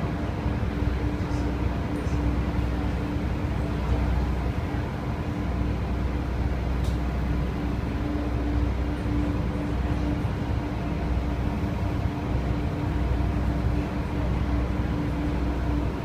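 Ferry's engines running with a steady low rumble and a constant hum, heard from inside the passenger cabin.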